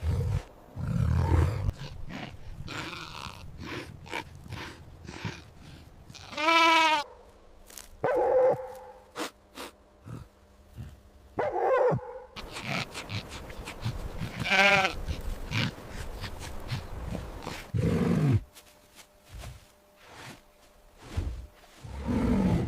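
Bleating livestock: several loud, quavering bleats spaced a few seconds apart, among scattered short noises.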